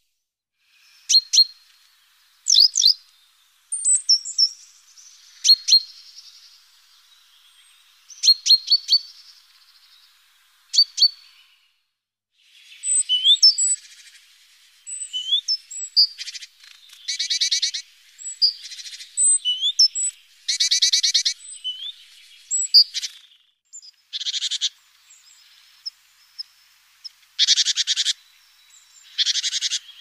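Small birds calling: scattered short, high chirps and clicks through the first ten seconds or so, then short rising whistled notes mixed with a series of fast rattling trills, each lasting under a second.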